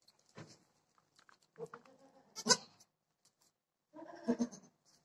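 Dwarf goats bleating: four short bleats, the loudest about halfway through.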